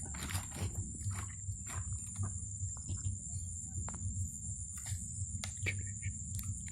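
Insects trilling steadily in a high, even drone, with scattered short clicks and rustles over a low steady rumble.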